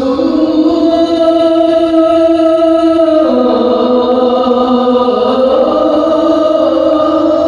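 A solo voice chanting an Islamic vocal line on long held notes, dropping in pitch about three seconds in and rising again about two seconds later.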